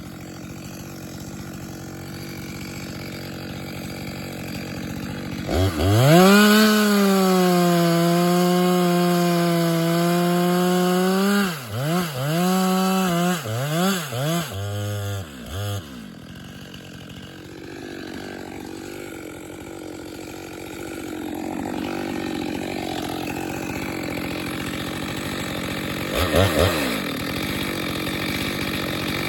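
Two-stroke chainsaw run at full throttle for about six seconds, its pitch sagging slightly under load as it cuts wood, then blipped several times in quick succession before dropping back to a lower steady running note, with one more short rev near the end.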